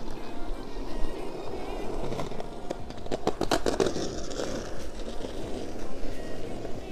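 Skateboard wheels rolling on street asphalt, a steady rough rumble, with a cluster of sharp clacks about three seconds in.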